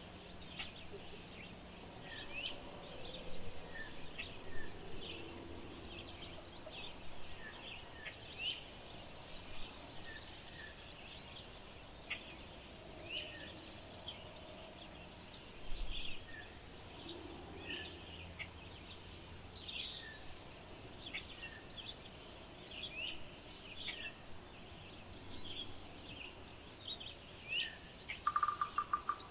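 Small birds chirping in the background: many short, sharp, high chirps at irregular intervals, with a rapid buzzy trill starting near the end.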